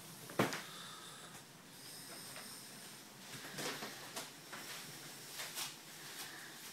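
A single sharp knock about half a second in, then faint scattered rustles and clicks over a low steady hiss.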